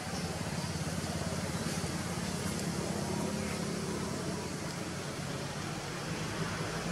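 A steady low mechanical hum over an even background noise, like an engine running at a distance.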